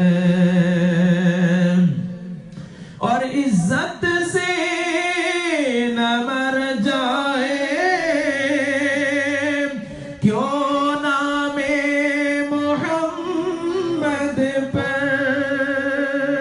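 A man singing an Urdu naat unaccompanied into a microphone, in long held notes with wavering ornaments. He breaks off briefly about two seconds in and again near ten seconds.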